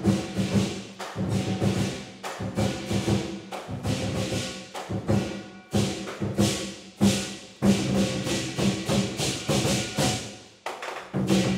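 Chinese lion dance percussion: a large drum beaten in a fast, driving rhythm with clashing cymbals ringing over it. It stops in short pauses between phrases, with a longer fall-off shortly before the end, then comes back in loudly.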